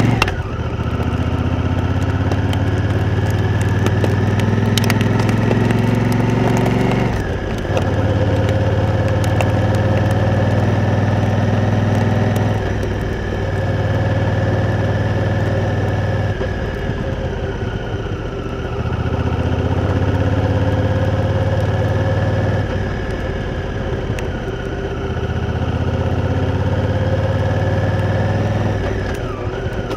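Honda Africa Twin's parallel-twin engine riding on, pulling at middling revs with its pitch creeping up, then dropping sharply in revs about five times before pulling again.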